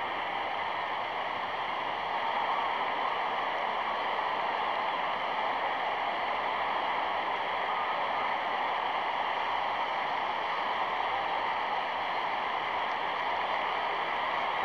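Steady, even rushing noise on an old match soundtrack, with no swells or sudden sounds.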